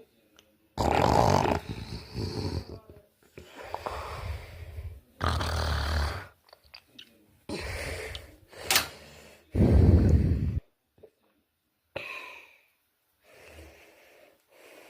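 A person with sleep apnea snoring in their sleep: a string of loud snores at uneven intervals, separated by silent gaps, growing fainter over the last few seconds.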